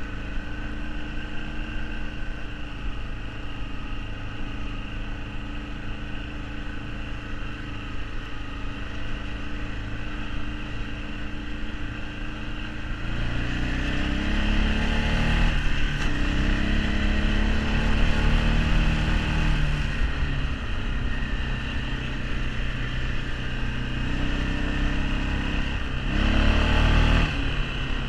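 Arctic Cat 454 ATV engine running under way, steady at first, then revving up about halfway in, its pitch rising and falling a few times as the throttle opens and closes, with a last surge near the end.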